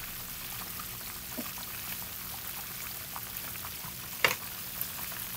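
Fish deep-frying in a pot of hot oil: a steady sizzle with light crackling. One sharp click about four seconds in, as metal tongs go into the pot.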